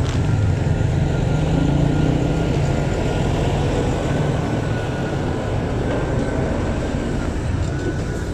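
Steady engine rumble of slow, jammed street traffic, heard from a motorcycle edging past close alongside a large box truck, with a thin steady whine above it.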